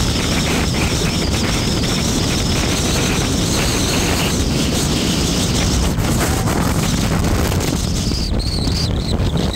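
Wind buffeting the microphone with the road noise of a moving vehicle: a loud, steady rumble.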